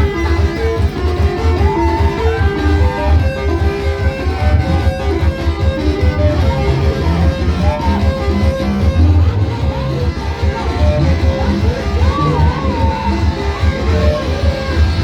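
Music with guitar lines over a heavy, steady bass beat.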